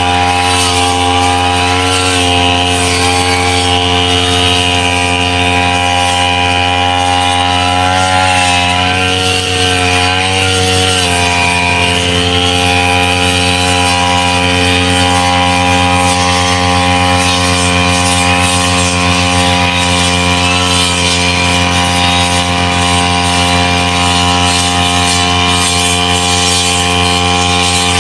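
Backpack brush cutter engine running steadily at high speed while cutting wet grass. Its pitch wavers briefly around nine to eleven seconds in.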